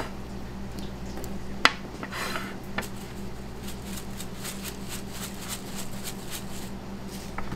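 A sharp click, then a plastic shaker of red chili flakes shaken over a pizza in a quick run of light rattling ticks for about four seconds, over a steady low hum.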